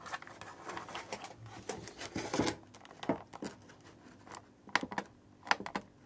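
Close handling noise of a plastic digital min/max thermometer display: rustling and scattered small clicks. A few sharper clicks come between about four and five and a half seconds in as its buttons are pressed.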